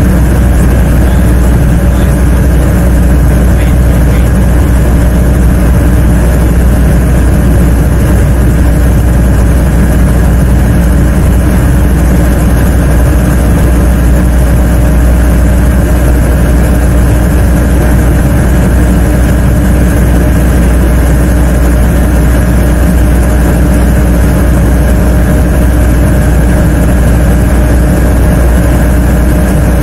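Helicopter engine and rotors running, heard from inside the cabin as a loud, unchanging drone with several constant tones.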